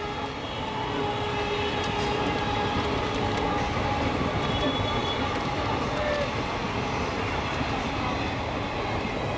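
Train running past on the tracks: a steady rumble of wheels and carriages, with thin squealing tones over it in the first few seconds.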